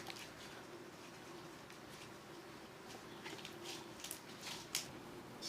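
Homemade glue slime being stretched and squeezed by hand, giving off faint, scattered small clicks and squishes.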